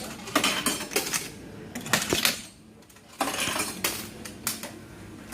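Metallic clinking and clattering in several short bursts, with a quieter gap in the middle.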